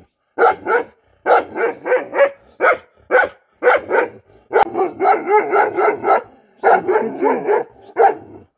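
Bhotia dog barking angrily, a fast series of loud barks at about two to three a second, several run together in quick strings through the middle.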